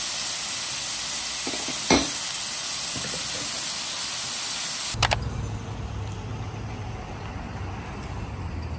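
Beef cubes, mushrooms, onion and zucchini sizzling on a hot grill pan, with one sharp tap about two seconds in. About five seconds in it cuts to a steady, low outdoor rumble.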